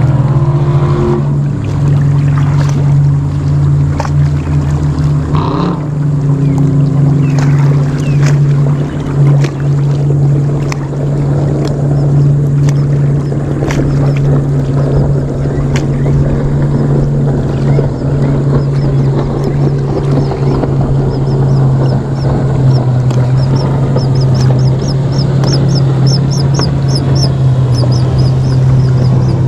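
A boat engine running steadily nearby with an even low drone, and a quick run of short high chirps near the end.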